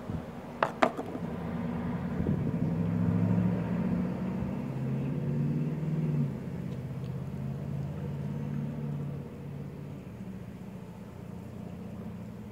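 A passing motor vehicle's engine: a low drone that swells about two seconds in and fades away after about nine seconds. Two sharp clicks come just before it.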